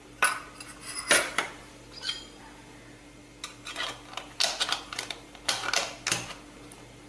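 Stainless-steel clanks and scrapes: a few sharp ringing clanks, then a run of metal-on-metal clinks as the domed steel lid is pushed down onto a filled puttu maker cylinder.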